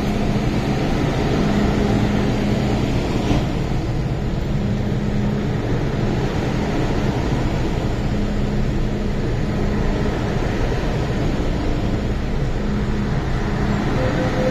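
Interior noise of an MTR Kwun Tong Line M-Train running between stations: a steady rumble of wheels on rail, with a low hum that comes and goes.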